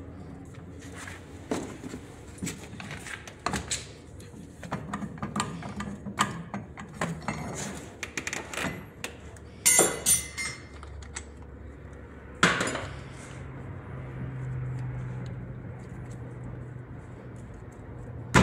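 Metal tools clicking and clinking against the steering wheel hub as its centre nut is worked loose, with a couple of louder clattering hits about halfway through.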